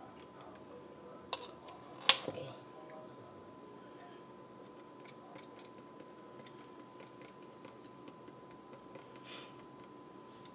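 Light clicks and ticks of a measuring cup and spice container being handled over a plastic mixing bowl, with one sharp click about two seconds in as the loudest sound, under a faint steady high hum.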